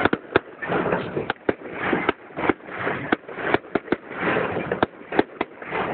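Fireworks display: an irregular, rapid series of sharp bangs, about three a second, with a continuous crackling hiss between them.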